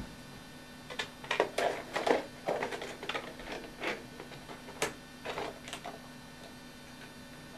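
RC helicopter canopy being handled and pushed down over the frame: a run of irregular clicks, knocks and scrapes starting about a second in and dying away near six seconds.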